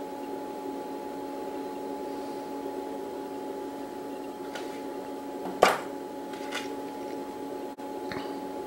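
A steady hum made of several fixed tones, with a few small clicks from handling small tools and parts. One sharp click, a little past halfway, is the loudest sound.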